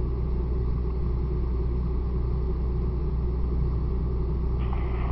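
Steady low engine drone with an even hum and no change in pitch, from a motor running continuously at the fire scene.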